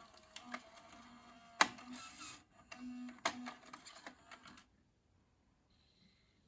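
Car stereo's disc or tape mechanism working: a string of small mechanical clicks and ticks with short motor whirs, stopping about four and a half seconds in.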